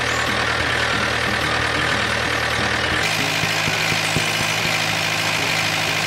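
An engine running steadily, like a tractor idling; its low note shifts about halfway through.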